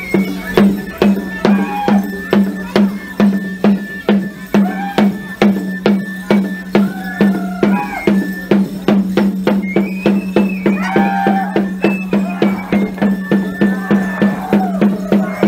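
Festive dance music with a steady beat of about three strokes a second, rattling percussion and a high melody line that glides between notes over a steady low tone.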